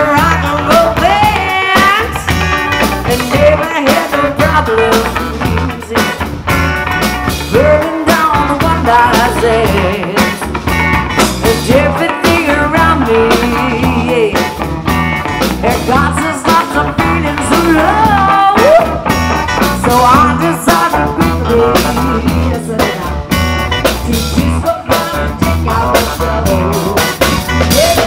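Live band playing: electric bass, drums, keyboards and electric guitar, with a woman singing lead.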